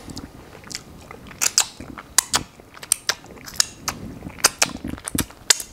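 Close-up eating of fried chicken wings: chewing with loud, irregular lip smacks, several a second.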